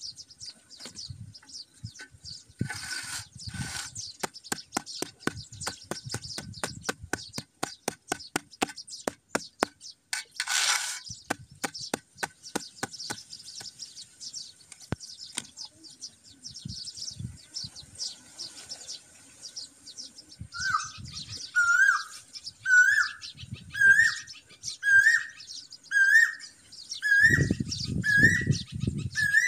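Birds chirping. A run of sharp clicks comes at about four a second for a stretch, and later a bird repeats a short rising call about once a second, with a few low thumps near the end.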